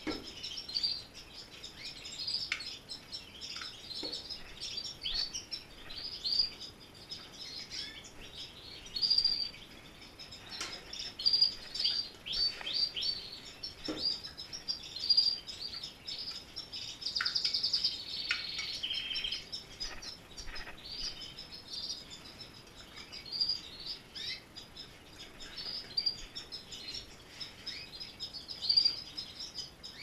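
Many domestic canaries chirping and singing together, with busy overlapping short calls and a fast rolling trill partway through.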